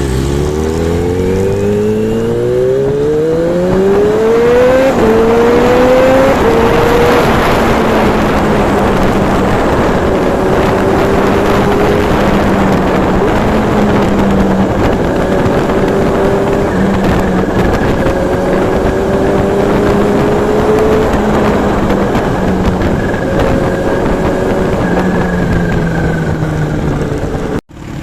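Kawasaki Z H2's supercharged inline-four accelerating hard, its pitch rising and dropping back at two upshifts about five and six seconds in, then running at a steady cruising speed. Heavy wind noise on the microphone runs throughout. The sound cuts out briefly near the end.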